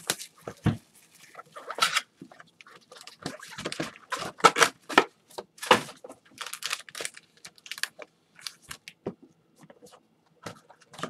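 Plastic wrappers on trading-card packs being torn open and crinkled, in irregular rustling bursts.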